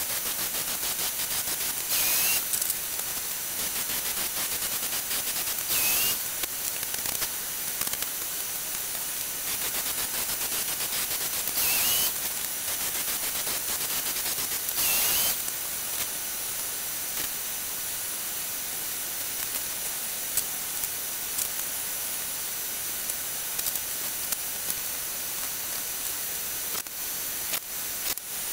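A steady hiss throughout, with four short louder bursts about 2, 6, 12 and 15 seconds in, each ending in a brief rising whine: a cordless drill driving screws into wooden seat slats.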